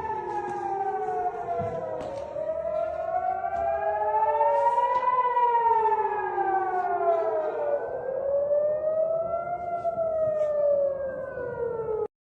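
Civil-defense air-raid sirens wailing as a warning of incoming rockets. At least two sirens slowly rise and fall in pitch, out of step with each other, each sweep taking several seconds. The sound cuts off suddenly near the end.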